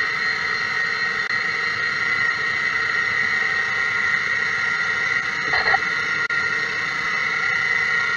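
CNC lathe turning an aluminium cylinder-liner blank, cutting with a steady, high-pitched whine made up of several tones. It is briefly louder about five and a half seconds in.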